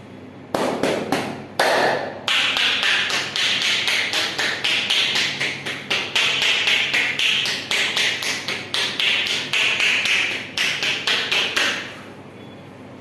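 Percussive massage strokes: hands striking the body in a fast rhythmic run of sharp taps, several a second. It opens with a few separate hits and then runs on almost without a break.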